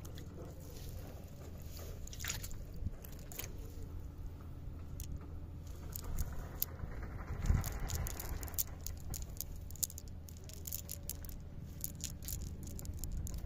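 Scattered small clicks and rustles of a wet nylon fishing net being handled as fish are picked out of it, over a steady low rumble, with a brief louder whoosh about seven seconds in.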